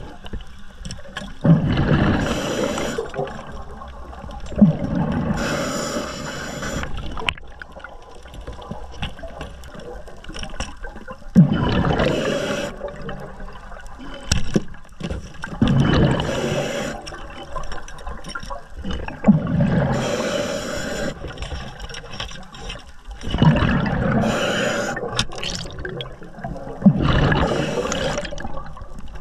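Underwater sound of rushing, gurgling water and bubbles, which swells in surges about every four seconds.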